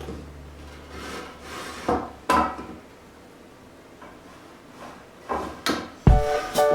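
Several wooden knocks and clunks with faint scraping between them, as of boards being handled; music with a deep beat comes in near the end.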